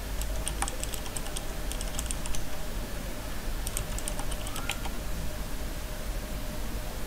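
Computer keyboard typing in two short runs of keystrokes, the first starting just after the start and the second about three and a half seconds in, over a steady low hum.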